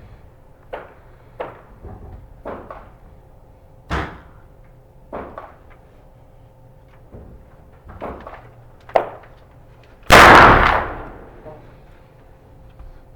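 A single rifle shot from a Uberti 1873 Sporting Rifle, a lever-action replica of the Winchester 1873, about ten seconds in: a sharp, very loud report with a short echoing tail. Several faint clicks and knocks come before it.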